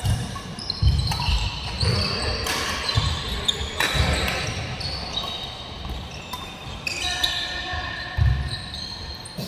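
Doubles badminton rally on a wooden court in a large hall: sharp racket strikes on the shuttlecock, low thumps of players' feet landing, and many short high squeaks of shoes on the floor.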